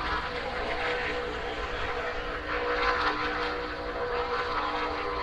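Stock car racing engines running in a steady drone under a wash of noise, swelling slightly about three seconds in.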